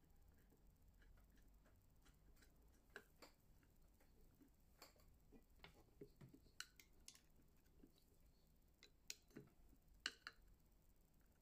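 Faint, scattered small clicks and taps of metal parts as a hand-crank attachment is fitted against the balance wheel of a vintage Singer sewing machine, with a few sharper clicks near the end.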